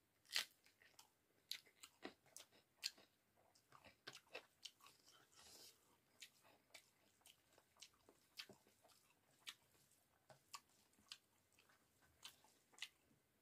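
Close-miked eating sounds of rice with cauliflower and potato curry eaten by hand: faint, irregular chewing with sharp little mouth clicks and crunches, a few a second, and fingers mixing rice on a steel plate.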